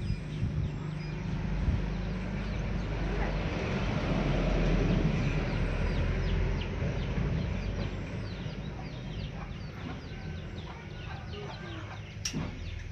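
Background clucking of fowl and many short, high chirps of small birds over a steady low rumble that swells in the middle, with a single sharp knock near the end.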